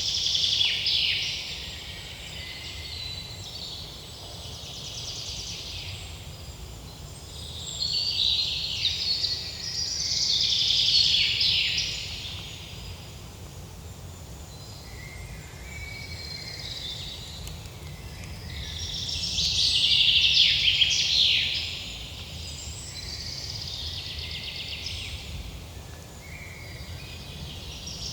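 Forest birds singing: a loud, rapid song phrase returns about every ten seconds, with fainter calls in between, over a low steady background rumble.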